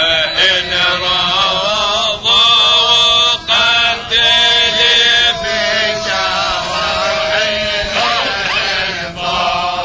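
Men's voices chanting a tahlila, an Islamic devotional chant, in long ornamented phrases that waver in pitch, with short breaths between them about two, three and a half and four seconds in.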